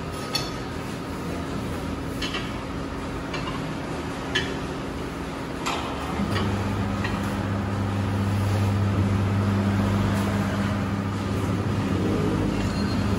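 Forceum tyre-changer mounting a tyre onto an alloy wheel: a few sharp metallic clinks of steel tyre levers against the rim, then from about six seconds in the turntable motor hums steadily as it turns the wheel to work the bead on.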